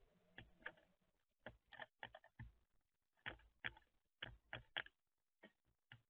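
European starling's beak tapping and knocking as it pecks at and handles peanuts in a bird feeder tray: about a dozen sharp, irregular taps, some in quick pairs and runs.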